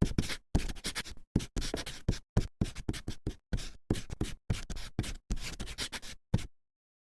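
Animation sound effect: a quick, irregular run of short scratchy noises, about four a second, that stops abruptly near the end.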